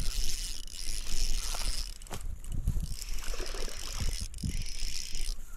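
Spinning reel being cranked to reel in a hooked bass, the reel's gears whirring, with wind rumbling on the microphone and a few low knocks.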